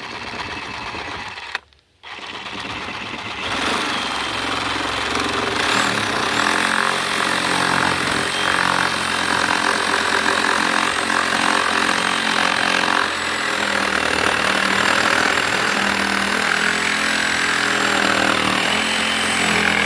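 Electric reciprocating saw cutting a bird's mouth notch into a wooden rafter. It runs steadily, stops briefly about two seconds in, then keeps cutting almost without a break until it stops at the end.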